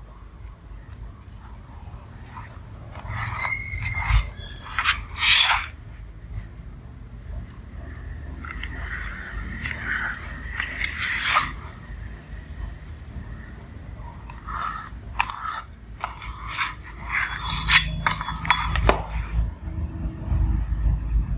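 Pencil scratching across a cardboard sheet as lines are ruled along a steel square, in a series of short strokes with a longer scrape about halfway through. The metal square scrapes on the sheet as it is shifted to new positions.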